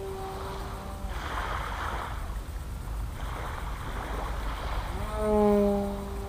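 Propeller aircraft droning overhead with a steady buzzing note. It grows to its loudest about five seconds in, then drops in pitch as the aircraft passes by near the end.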